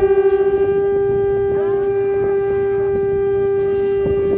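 A long curved shofar blown in one long, steady note at a single pitch, wavering slightly at the start before settling.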